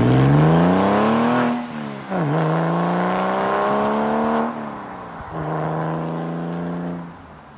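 Porsche 996 Carrera 4S's 3.6-litre flat-six through a DesignTek Valvetronic sports exhaust, accelerating away. The revs climb, drop at an upshift about two seconds in, climb again, drop at a second upshift about halfway through, then hold a steady pitch as the sound fades with distance.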